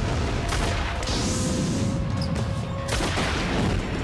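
Movie explosions: heavy blasts with a long rushing roar, one about half a second in and another near three seconds, under the film's music score.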